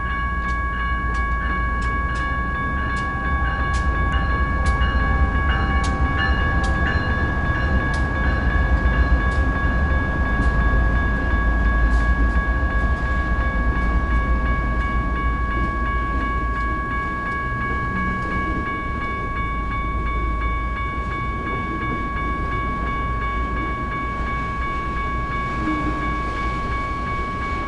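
General Signals type 1 electronic crossing bells ringing steadily while a BNSF intermodal freight train passes over the crossing. The diesel locomotives' heavy rumble, with sharp wheel clicks over the rail joints, is loudest in the first half, then gives way to the lower rumble of the trailer-carrying cars.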